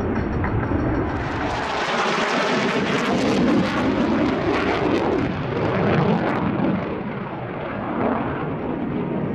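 Panavia Tornado's twin RB199 turbofans in afterburner as the jet flies its display, a loud jet noise with a crackle that builds about a second in and eases off after about six and a half seconds.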